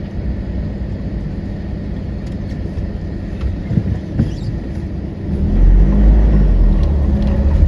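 Force Gurkha diesel SUV driving over a rough, rocky gravel track, heard from inside the cabin: steady engine and road noise, with a loud low rumble building about five seconds in.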